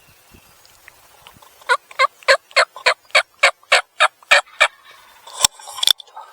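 Wild turkey calling: a quick run of about eleven evenly spaced loud notes, then two sharp clicks near the end.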